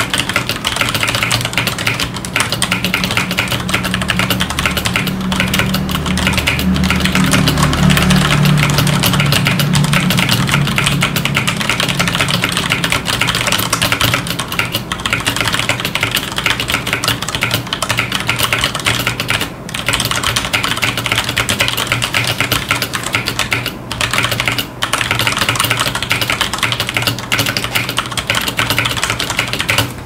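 Fast, continuous typing on a FILCO Majestouch 2 mechanical keyboard with Cherry MX Brown switches (tactile, non-clicky), a dense stream of key clacks with two brief pauses in the second half.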